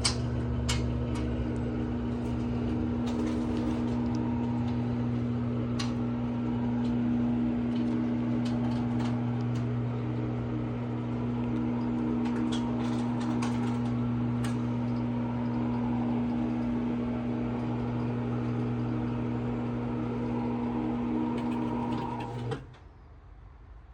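Tubular motor of a motorized retractable screen running steadily as the screen rolls, a constant hum with light clicks and ticks along the way, stopping abruptly about 22 seconds in as it reaches its limit.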